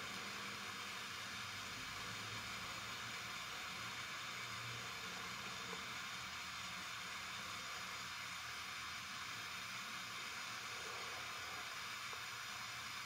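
Handheld mini gas torch burning with a steady hiss as its flame is held on a twisted copper wire joint to melt lead-free solder.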